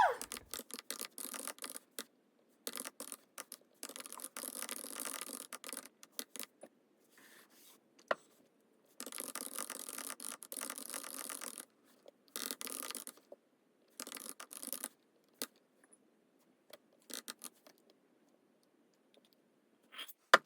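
Intermittent scraping and rubbing noises in short spells of a second or two, broken by gaps and a few sharp clicks.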